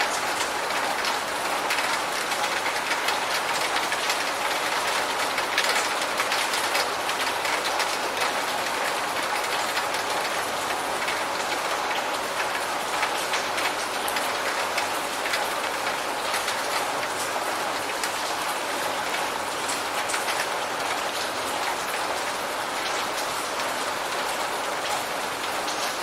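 Steady rain falling, a dense even hiss with many small drop ticks on a surface.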